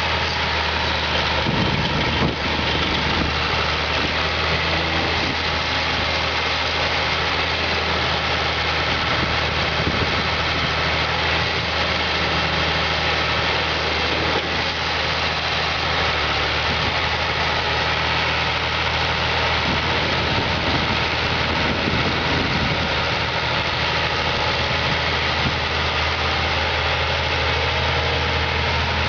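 John Deere 2840 tractor's 6329DL six-cylinder diesel engine running steadily at low revs, near idle, as the tractor drives slowly along.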